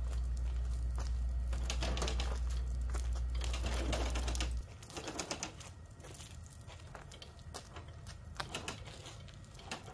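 Portable table saw on a folding wheeled stand being rolled over brick pavers, its wheels, frame and saw rattling and clicking irregularly. A low steady hum runs under it and cuts off about halfway through.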